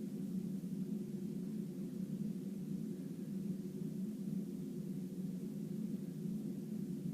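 Steady low background hum with nothing else happening.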